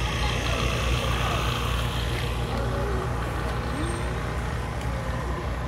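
Steady low rumble with an even background hiss, and faint distant voices now and then.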